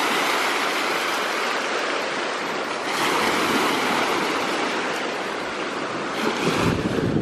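Small sea waves washing over a shallow rocky, weedy shore around the feet: a steady hiss of moving water that swells about every three seconds, with a low rumble near the end.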